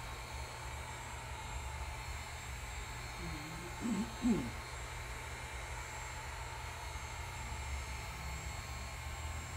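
Electric heat gun blowing steadily, a constant rushing hiss with a low hum, aimed at an aluminium motor side cover to heat it until the steel bearing pressed into it comes loose. About four seconds in, a person makes a brief wavering vocal sound.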